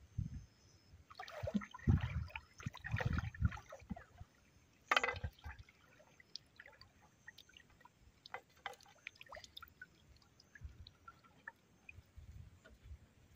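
Shallow pond water splashing and sloshing as people wade with filled water pots. There is a dense patch of splashing early, one sharp splash about five seconds in, and after that only quieter scattered small clicks.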